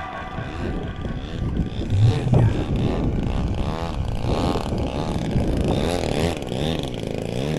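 Radio-controlled model aircraft engine buzzing, its pitch swinging up and down again and again.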